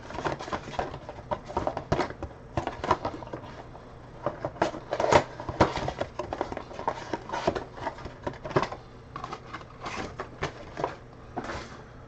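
Foil-wrapped trading card packs being handled, crinkling and rustling in irregular small crackles and taps.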